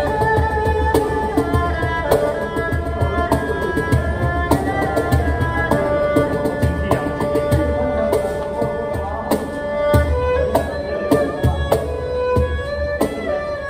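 Improvised duet of erhu and cajon: the erhu bows a sustained melody with some notes sliding between pitches, over a steady cajon rhythm of deep bass thumps and sharp slaps.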